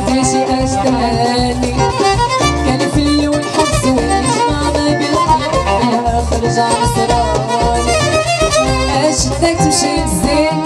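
Instrumental break of a live Moroccan chaabi band: a lead melody with quick ornaments over a steady bass beat, with sharp percussion hits near the end.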